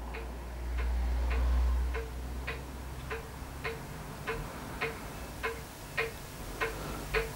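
Steady, even ticking, about two and a half ticks a second, with a low rumble in the first two seconds.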